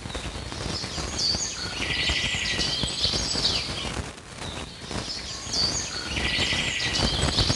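Birds chirping in two similar stretches of calls, about a second and a half in and again near the end. Underneath is soft crunching and knocking as fried gond (edible gum) is crushed with a masher in a steel plate.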